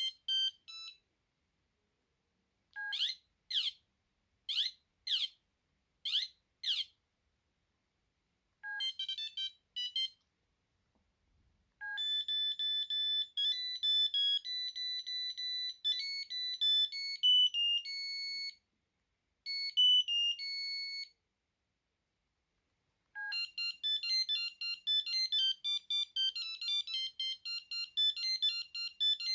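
Ericsson A2618s mobile phone playing previews of its built-in monophonic ringtones one after another, each starting with a short lower beep and separated by brief silences. First a run of five quick falling chirps, then a short beeping phrase, then a slower melody of held notes, and near the end a fast, busy beeping tune.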